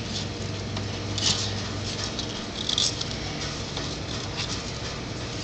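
Baby turtles' claws scratching and scrabbling on a plastic bin, in short scratchy bursts, the strongest about a second in and near three seconds in.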